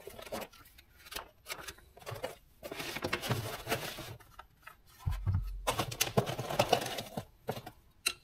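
Unboxing handling: cardboard box flaps and packaging rustling and scraping, with light clicks and knocks as a battery charger, its power cord and wired leads are lifted out. A low thud a little past halfway, as something is set down on the bench.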